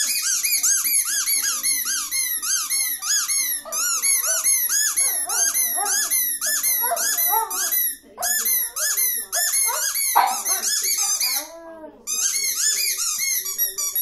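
A rubber squeaky toy squeaking over and over, several quick high squeaks a second, as a shih-tzu chews it. The squeaking breaks off briefly about eight seconds in and again near twelve seconds.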